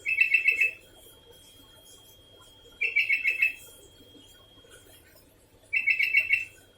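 Sooty-headed bulbul (kutilang) calling: three short phrases of about five quick notes each, roughly three seconds apart.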